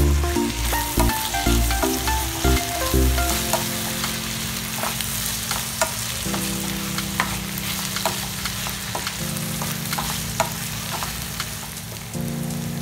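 Sliced onions, green chilies and tomato sizzling in oil in a frying pan, with the sharp clicks and scrapes of a utensil stirring them against the pan. Soft background music with held chords runs underneath.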